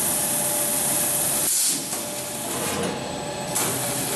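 Paper hand towel log saw cutting machine running, with a loud hiss that cuts out abruptly about one and a half seconds in and comes back near the end.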